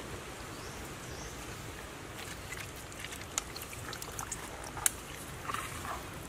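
Water trickling and dripping, with scattered sharp wet clicks and small splashes from hands working in a gutted crocodile and handling wet turtles at the water's edge; the loudest click comes about five seconds in.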